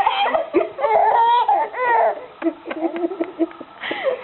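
A young child's high-pitched babbling and laughing, with short, sharp vocal sounds in between, typical of a toddler playfully imitating coughs.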